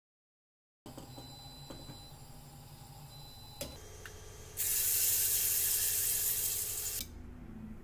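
Hot oil tempering poured from a ladle onto green chutney, sizzling loudly for about two and a half seconds and then cutting off suddenly. Before it there is only faint kitchen room noise and a single click.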